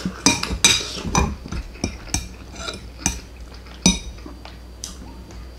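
Metal fork and knife clinking and scraping against ceramic dinner plates: a string of irregular light clinks while cutting and picking up meat.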